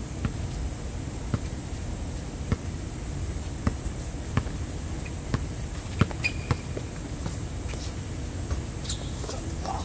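Basketball bouncing on an outdoor hard court: single sharp bounces, irregular, about one a second, over a steady low background rumble.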